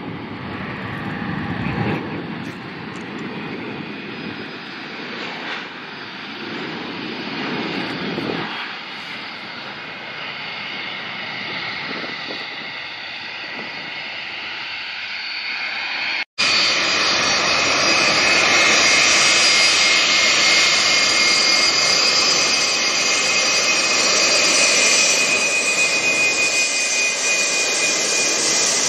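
Boeing 737 jet engines at takeoff power, a rumble and hiss that thins out as the airliner lifts off and climbs away. About halfway through an abrupt cut brings a louder, closer Boeing 757 freighter's jet engines rolling on the runway, a steady hiss with a high whine.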